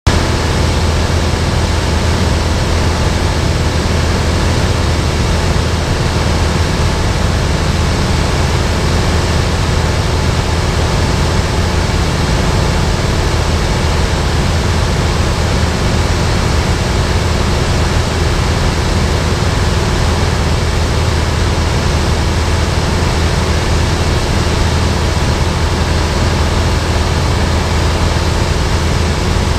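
Cabin noise of a single-engine propeller light aircraft in cruise: the engine and propeller drone as a steady low hum under an even rush of wind.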